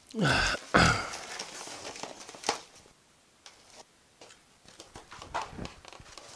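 Plastic wrapping and styrofoam packaging being handled as microscope parts are lifted out: rustling with scattered light clicks and knocks. Two louder, breathy noises come in the first second.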